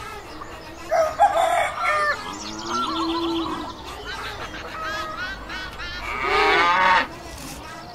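Chickens clucking about a second in, and a rooster crowing near the end, the loudest call.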